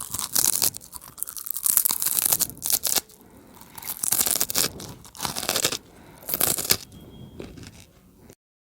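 Close-miked chewing of crunchy food, Kurkure snacks and cucumber, in dense bursts of crunching that grow sparser and quieter toward the end. The sound cuts off abruptly shortly before the end.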